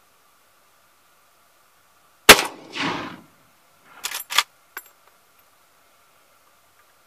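A single shot from a Marlin 336 lever-action .30-30 rifle firing Hornady LeverEvolution ammunition, with an echo coming back about half a second later. About two seconds after the shot, a few quick metallic clacks of the lever being worked to eject the case and chamber the next round, then one small click.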